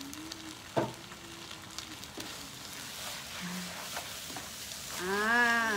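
Kuey teow noodles sizzling in a hot non-stick wok on a gas burner, tossed with a wooden spatula that scrapes and knocks once about a second in. Near the end a person's voice makes one drawn-out sound that rises and then falls.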